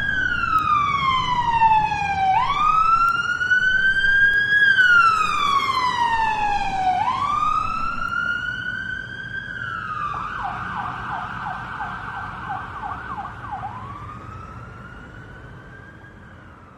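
Electronic siren sounding as the pulled fire alarm: slow wailing sweeps that fall and rise, switching about ten seconds in to a fast yelp of roughly two to three sweeps a second, then back to a wail that fades out near the end.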